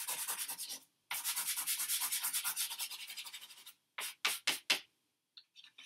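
A pastel stick scribbled rapidly back and forth on drawing paper, colouring in an area with a fast run of scratchy strokes, about ten a second, with a short pause about a second in. A little past four seconds come four slower, separate strokes.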